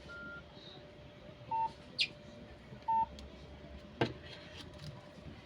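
Short electronic button beeps: a brief higher beep at the start, then two short lower beeps about a second and a half apart. A sharp click comes between the two lower beeps, and another click comes about four seconds in.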